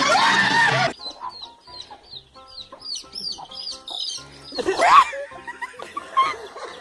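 Loud laughing and chatter that cuts off abruptly about a second in, then a bird giving a run of short high chirps, two or three a second, over background music, with one loud rising squawk about five seconds in.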